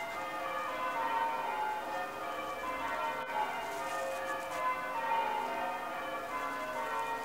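Bells ringing in a continuous peal of many overlapping tones.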